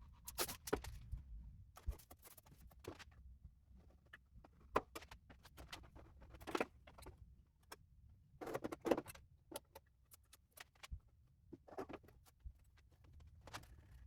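Scattered light clicks, rustles and small knocks of things being handled on a workbench, with a few louder knocks.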